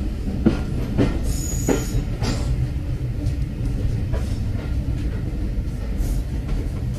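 Train carriage rolling along, heard from inside: a steady low rumble with knocks of the wheels over rail joints, several close together in the first two seconds and sparser after.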